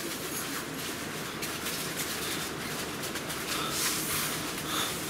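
Steady hiss of rain falling on and around the tent.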